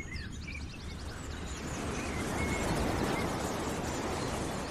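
Outdoor ambience: birds chirping, with a quick trill about half a second in, over a steady noise bed that grows louder in the middle.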